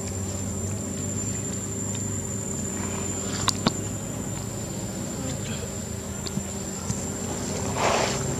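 Steady outdoor background of a low hum and a high, even whine, with two sharp clicks about three and a half seconds in and a brief rustle of dry leaves near the end as a baby macaque moves across the leaf litter.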